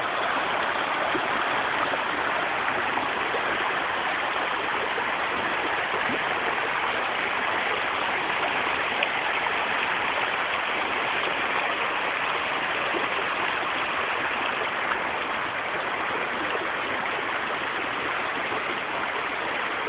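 Shallow stream running over a bed of pebbles and stones: a steady, unbroken rush of water.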